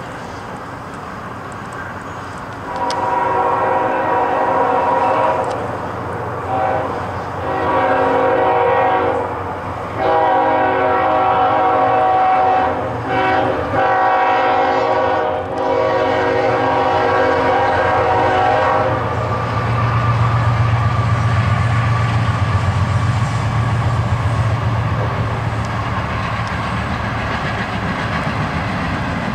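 Freight train's diesel locomotive sounding its air horn in a series of long and short blasts as it approaches. The horn stops and the locomotive's engine rumbles past, followed by the steady rolling of the train.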